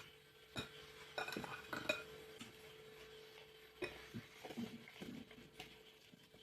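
Kitchen dishes and utensils handled: a scatter of light clinks and knocks of crockery and cutlery, in two bursts, over a faint steady hum.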